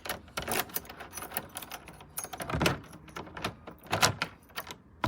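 Keys rattling and a door's multipoint lock clicking as the key is turned and the handle worked to unlock and open the door. This is a test of a temporary replacement lock mechanism. There are a series of sharp clicks and knocks, the loudest about two and a half seconds in and again at about four seconds.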